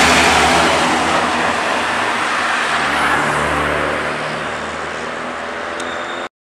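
Romanian military 6x6 cargo truck passing close by, its diesel engine and tyres loud at first, then fading as it drives away. The sound cuts off suddenly near the end.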